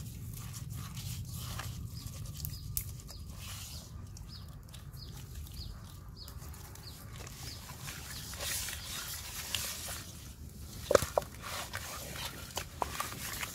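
Hands rubbing and squishing a wet chili-garlic marinade into raw pork ribs in a metal wok, with scattered small knocks of meat and fingers against the pan and one sharper knock about eleven seconds in.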